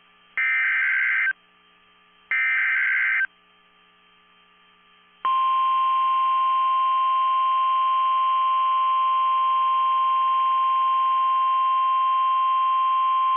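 NOAA Weather Radio emergency alert signal. First come the last two of three SAME header data bursts, about a second each and a second apart: shrill, buzzy digital tones that encode a snow squall warning and its county. Then, about five seconds in, the steady single-pitch 1050 Hz warning alarm tone begins, signalling that a warning message follows.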